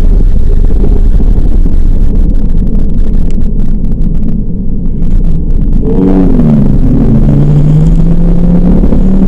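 2010 Ford Focus RS's turbocharged 2.5-litre five-cylinder engine heard from inside the cabin on track, over a heavy rumble. About six seconds in, the engine note appears, drops for about a second, then climbs steadily as the car accelerates.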